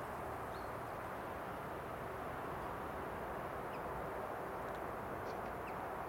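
Steady outdoor background noise with a few faint, short bird chirps scattered through it.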